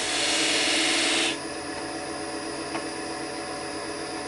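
Wood lathe running, with a lathe knife cutting the spinning wood for about the first second; the cut then stops and the lathe runs on at a steady hum.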